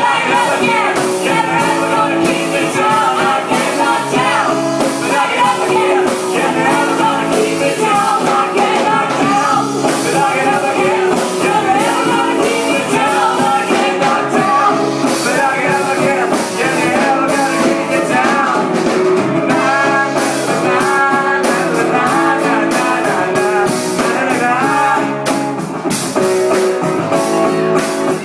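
Live rock music: a band playing with singing and guitar, with a steady beat of drum strokes that stands out more from about twenty seconds in.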